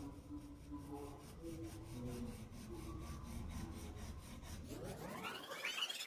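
Coloured pencil rubbing back and forth on paper while shading. Near the end, a sweep rises sharply in pitch and is louder than the rubbing.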